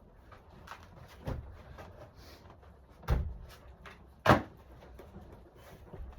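Three hard knocks, a second or two apart, the third the loudest, with faint clicks and rustling between them.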